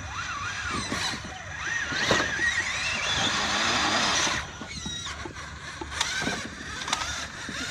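Electric motor and gear whine of 1/10-scale RC crawler trucks working over rocks, the pitch rising and falling with the throttle, loudest from about two seconds in until it cuts off shortly after four seconds.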